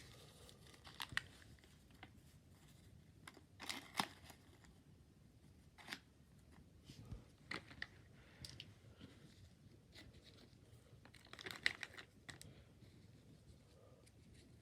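Quiet, irregular crinkling and rustling of plastic packaging and gift-bag materials being opened and handled, with scattered light clicks and taps; the busiest bursts come about a second in, about four seconds in and near the end.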